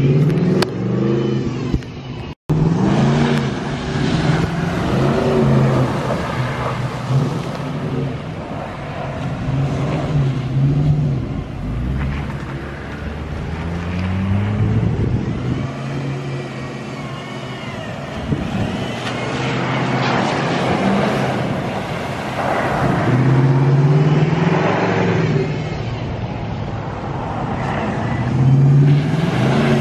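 Truck engines revving hard, their pitch rising and falling over and over, with a steady rush of noise underneath.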